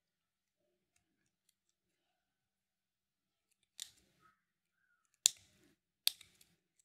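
Split ring pliers and a steel split ring being worked onto the eye of a metal jig: three sharp metal clicks in the second half, the middle one loudest, with near silence between.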